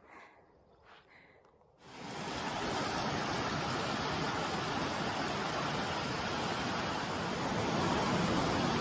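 Mountain creek cascading over rocks: a steady rush of water that comes in about two seconds in and holds even.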